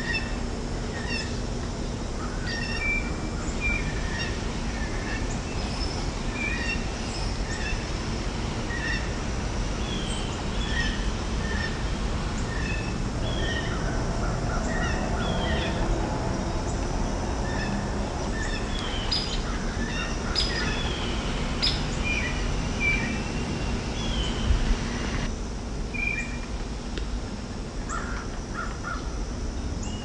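Several wild birds singing and calling in spring, with many short chirps repeating and overlapping. A steady low rumble lies underneath, and a single thump sounds near the end.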